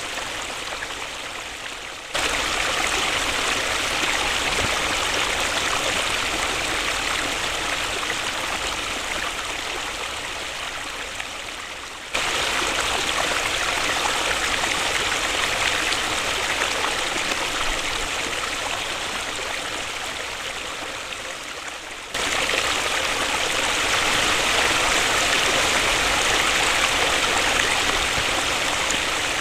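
Waterfall: a steady rush of falling water. The level jumps up abruptly three times, about every ten seconds, and sags slightly between the jumps, as at edit points in the recording.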